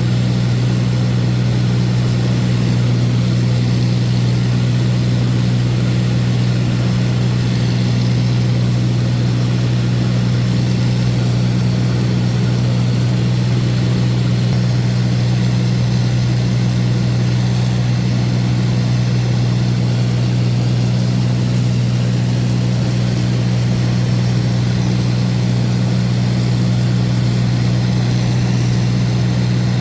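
Light aircraft's piston engine and propeller droning steadily, heard from inside the cabin: a loud, even low hum that does not change.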